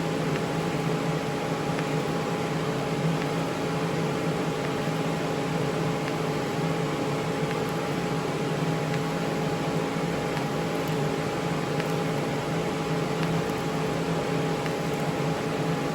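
Steady machine hum with an even hiss from a TIG welding setup, running without a break.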